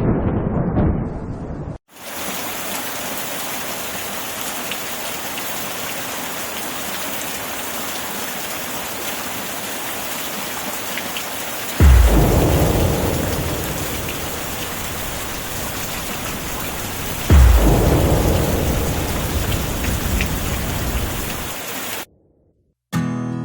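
Steady heavy rain with thunder: a rumble of thunder cuts off abruptly about two seconds in, then rain falls evenly, broken twice, about halfway through and again some five seconds later, by a sudden thunderclap whose rumble fades over a few seconds.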